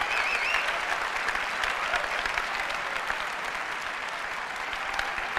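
Large audience applauding steadily, with a short wavering whistle from the crowd near the start; the clapping eases a little toward the end.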